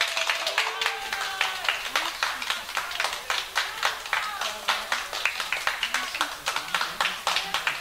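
A small audience clapping steadily, with voices talking underneath.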